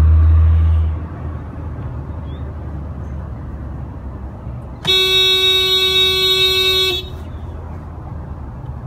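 A handheld air horn gives one steady blast of about two seconds, starting about five seconds in. Earlier, a loud low drone stops abruptly about a second in.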